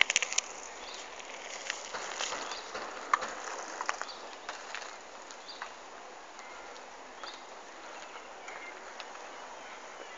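Steady outdoor background noise. A few sharp clicks and ticks come in the first four seconds, and faint short high chirps come after that.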